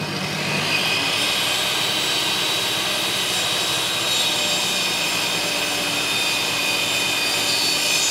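Makita benchtop table saw running at full speed, its whine finishing a rising spin-up about a second in and then holding steady while a board is fed along the fence toward the blade.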